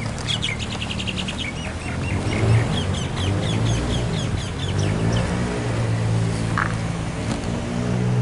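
A small bird chirping in a quick run of high notes, then a few scattered chirps, over a steady low engine hum from a nearby vehicle.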